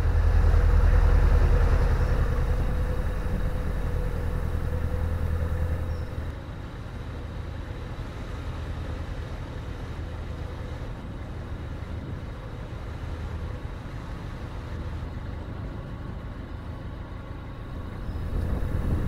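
Narrowboat engine running steadily as the boat cruises, a low rumble that is louder for the first few seconds and then settles quieter.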